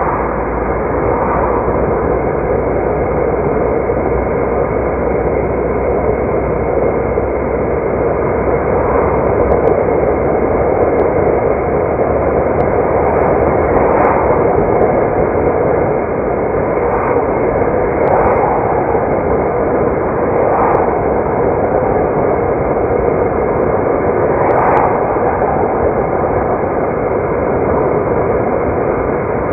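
Steady road and engine noise of a car being driven, swelling briefly a few times in the second half.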